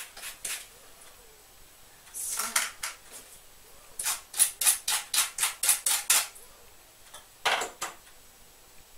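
Lemon rind being grated on a metal grater over a mixing bowl: short scraping strokes in groups, the longest a quick run of about eight strokes, roughly four a second, from about four to six seconds in.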